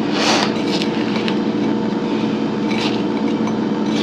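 Silicone spatula stirring frozen blackberries and sugar in a glass bowl: a few scraping, clinking strokes against the glass. A steady mechanical hum runs underneath throughout.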